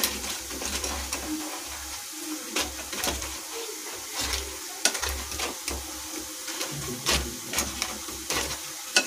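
Hand mixing fried soya chaap pieces into a thick masala marinade in a glass bowl, with irregular soft clicks and squelches. Underneath is a faint steady sizzle of onions frying in oil.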